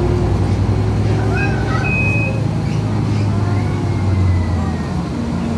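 Mercedes-Benz O405G articulated bus's diesel engine running, a steady low drone heard from inside the passenger cabin. Brief high beeps sound about two seconds in.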